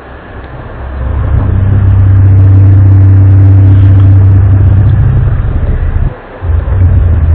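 Loud, low droning rumble with a steady deep hum, one of the recordings passed around in 2012 as mysterious 'strange sounds' heard in the sky. It swells up over the first couple of seconds, drops away briefly about six seconds in, then comes back.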